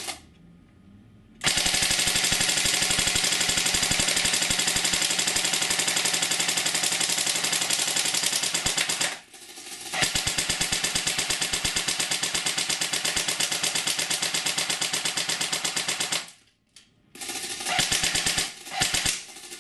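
A&K PKM airsoft electric machine gun (AEG) firing on full auto: rapid, evenly spaced shots in two long bursts, the first starting about a second and a half in and running some eight seconds, the second about six seconds, then a couple of short bursts near the end.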